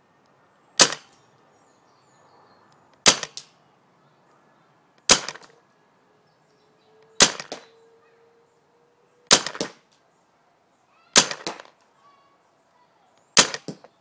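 RAP4 T68 paintball marker, run on a 3000 psi HPA tank, fired seven single shots about two seconds apart, each a sharp crack with a short tail.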